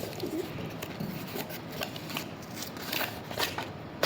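Packaging rustling and crinkling by hand, with irregular short crackles and small clicks, as a freshly opened parcel is unpacked.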